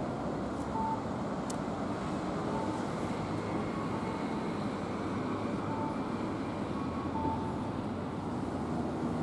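Steady outdoor traffic noise, an even low hum of passing road vehicles, with a few faint short high peeps scattered through it.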